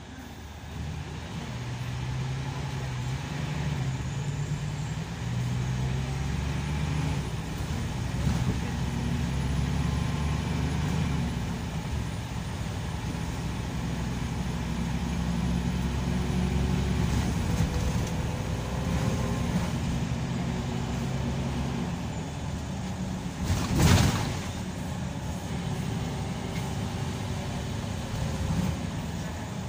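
Scania K340EB coach's engine and drivetrain heard from inside the passenger cabin as the bus gets under way and drives on, the engine note stepping up and down through the gears. A brief loud burst of noise about 24 seconds in.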